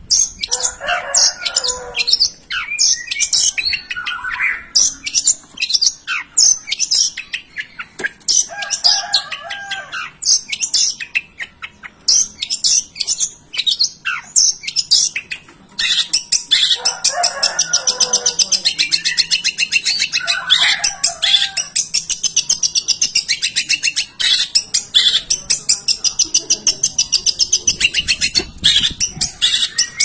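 Long-tailed shrike (cendet) singing in full voice: a fast run of sharp high chirps and trills, broken by short lower-pitched phrases copied from other birds. About sixteen seconds in, the notes run together into a dense, unbroken high trill.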